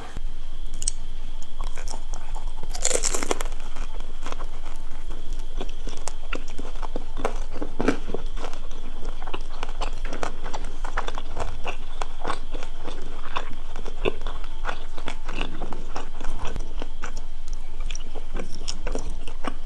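Close-miked crunching bites and chewing of a crispy fried dumpling, with many small crackles throughout and one loud crunch about three seconds in.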